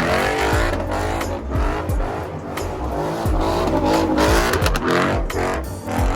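High-powered car revving hard and spinning its tyres, the tyres squealing, with sharp pops coming again and again.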